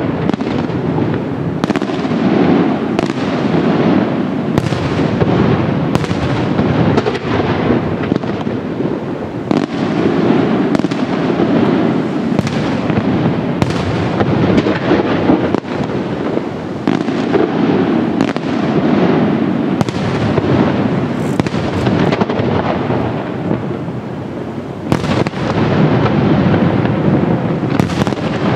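Fireworks display at full intensity: a dense, continuous barrage of aerial shells bursting, with sharp bangs coming several a second over a rolling rumble of reports. The barrage eases slightly about three quarters of the way through, then builds again.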